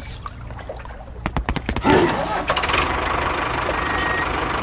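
A tractor engine starting: a quick run of clicks about a second and a half in, then the engine catching and running steadily. A short high beep comes near the end.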